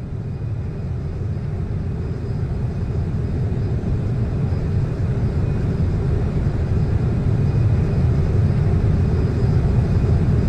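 Jet airliner engines rumbling on takeoff, growing steadily louder.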